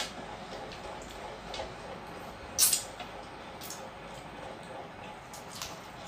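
Close-up eating sounds: fingers working rice and curry on metal plates, and small wet clicks from mouths chewing. A single louder, sharp smack comes about halfway through.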